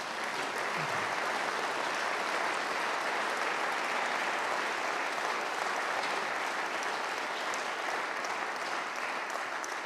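Audience applauding steadily: many hands clapping in a large hall.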